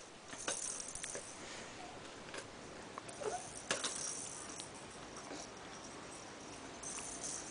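Faint rustling and scattered light knocks of small household things being handled by a toddler, with a brief soft vocal sound about three seconds in.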